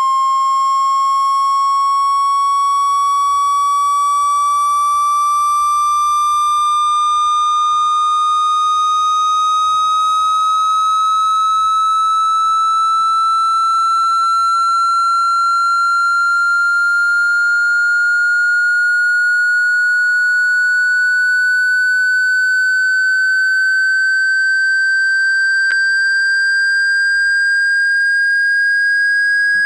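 Loud electronic tone gliding slowly and steadily upward in pitch. It is a water-ejection sweep meant to be played at full volume to vibrate water out of a wet phone speaker.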